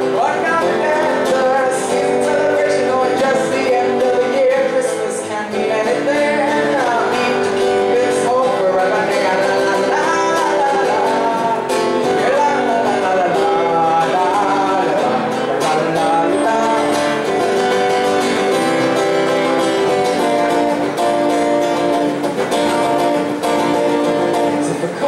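A holiday song performed live, with singing over guitar.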